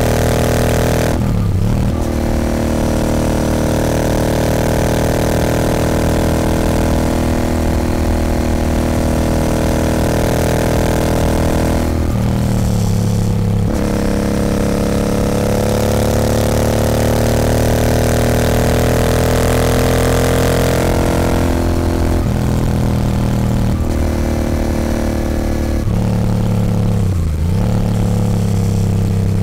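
Royal Enfield Continental GT 650's parallel-twin engine running through an aftermarket Nuke exhaust under way. It pulls through the gears, with breaks for shifts about a second in and around twelve seconds in, then a long climb in pitch. Several shorter rev changes come near the end.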